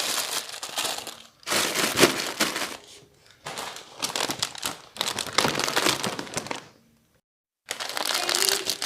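Crinkly plastic snack packets being handled in repeated bursts of crinkling, with short pauses between them. The sound drops out completely for about half a second near the end.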